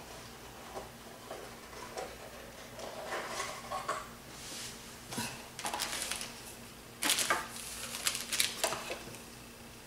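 Quadcopter parts and packaging being handled and unpacked from the box: scattered rustles, light clicks and small clatters, with a few sharper knocks in the second half.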